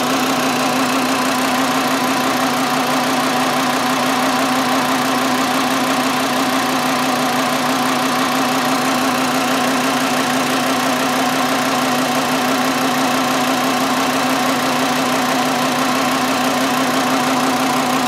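VW 2.5-litre inline five-cylinder engine idling steadily while misfiring on cylinder two, whose ignition coil has failed.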